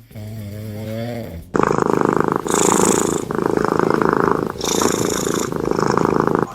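Sleeping cat snoring loudly with a fast, purr-like rattle in long breaths, broken by two short pauses. Before it starts there is a quieter, wavering pitched sound.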